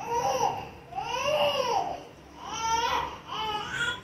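A young child crying, about four wails, each rising and falling in pitch.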